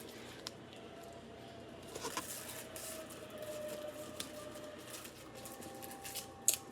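Faint handling noises: light rustling and a few small clicks and ticks, busiest about two seconds in, over a faint steady hum.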